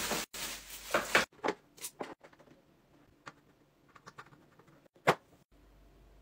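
Clear acrylic perfume stand clicking and tapping as its pieces are handled and set down on a desk: a quick run of sharp taps in the first two seconds, a few lighter clicks after, and one louder clack about five seconds in. A steady hiss fills the first second.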